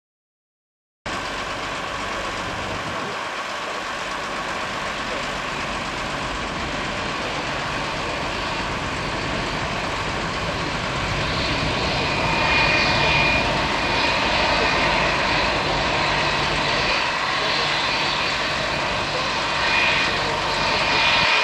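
Jet engines of an Airbus A321-231, its IAE V2500 turbofans: a steady rushing roar that cuts in about a second in and slowly grows louder. A high whine comes and goes in the second half.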